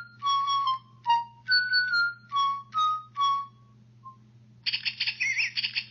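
Canary song: about six short, clear whistled notes, then a rapid chattering trill from about three-quarters of the way in.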